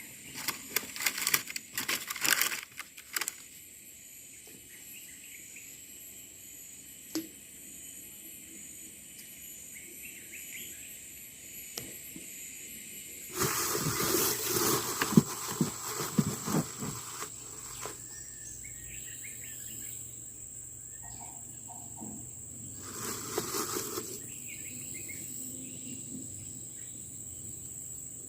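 Steady high-pitched drone of insects, with a few faint bird chirps. Loud bursts of clattering, rustling noise cut in at the start, again for about three seconds midway, and briefly near the end.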